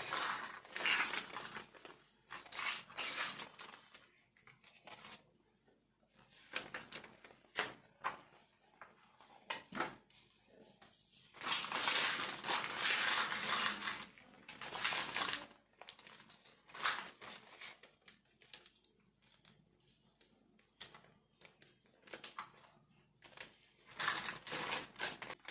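Clear zip-lock plastic bags holding a Mechanix construction kit's metal and plastic parts crinkling as they are handled, with the small pieces inside clicking together. About halfway through there is a longer stretch of steady crinkling.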